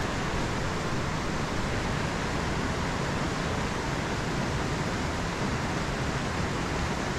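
Steady rush of a creek's water running over riffles.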